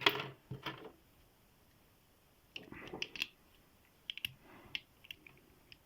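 Light clicks and small metallic rattles from handling a tiny 20 mm padlock and its tools. They come in a few short clusters: one at the start, a busier one a little before halfway, and scattered clicks near the end.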